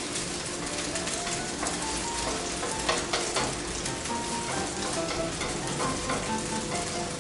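Beaten egg with crab stick, mushrooms and green onion sizzling in hot oil in a nonstick frying pan, stirred with chopsticks. The steady crackle is broken by a few sharper clicks about three seconds in.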